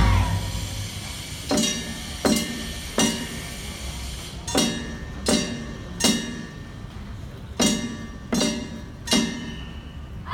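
A struck metal percussion instrument ringing in rhythmic groups of three strokes, each group a little under a second and a half long, over a steady low rumble; one louder strike opens the passage.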